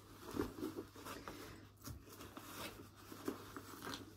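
Faint rustling of a cloth dust bag being opened and a handbag pulled out of it, with a few soft scrapes and taps.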